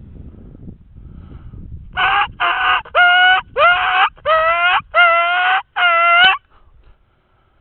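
Dying-rabbit distress call blown on a turkey diaphragm mouth call: seven loud squealing cries, each about half a second long and rising at the start, the first two raspier. Used to lure a coyote.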